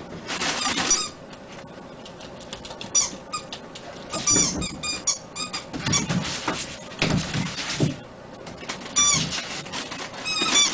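Maltese puppies giving short high-pitched squeaks and yips in quick clusters, with scuffling and bumping between them.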